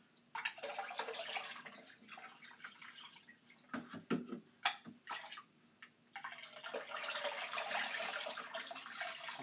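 Water poured from a plastic cup over a cat standing in a tub of water: two long pours, with a few splashes and drips between them.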